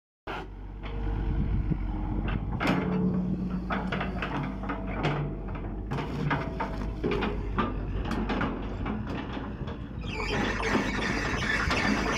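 Hitachi Zaxis 210LC crawler excavator's diesel engine running, with repeated knocks and clanks from the bucket working on the ground and short squealing tones. About ten seconds in, a louder hiss sets in over the engine.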